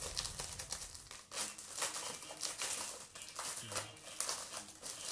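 Plastic packaging crinkling and rustling in irregular crackles as a magazine is unwrapped and handled.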